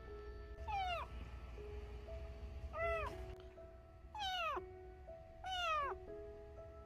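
A small orange-and-white kitten meowing four times, short calls that fall in pitch.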